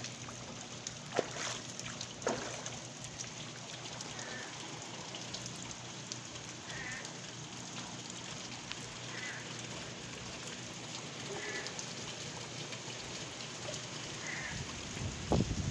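Steady rain falling on standing floodwater and a waterlogged lawn, an even hiss of drops on the water. A few faint clicks sound in the first seconds, and a louder clatter of handling knocks comes right at the end.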